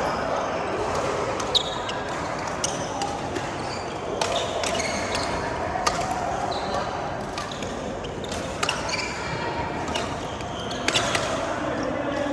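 Badminton rally: sharp racket strikes on the shuttlecock at irregular intervals of one to three seconds, with short high shoe squeaks on the court floor between them.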